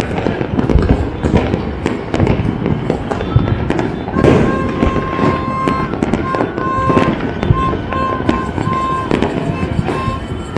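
Many fireworks and firecrackers going off at once across the city, a dense, continuous crackle of pops and bangs. From about four seconds in, a repeated on-off beeping tone sounds over it.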